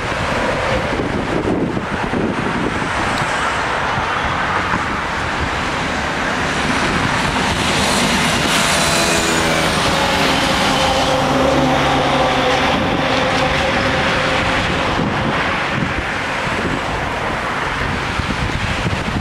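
Steady road traffic noise with wind on the microphone; the traffic swells a little around the middle as a vehicle passes.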